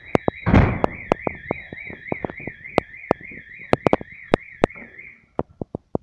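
Electronic fire alarm sounding a high warbling tone that wavers several times a second, cutting off about five seconds in. Many sharp clicks and a thump about half a second in sound over it.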